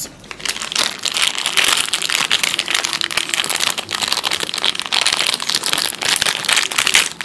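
Plastic wrappers of two Cadbury Shots packets crinkling as they are torn open by hand, a dense run of small crackles.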